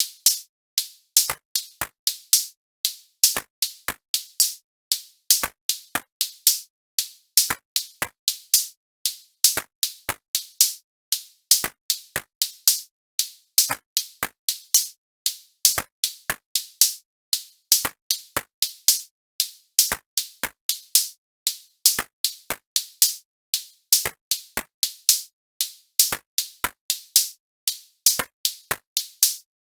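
Electronic music: a sparse drum-machine beat of short, crisp percussion hits, mostly high-pitched, about two to three a second with silence between them.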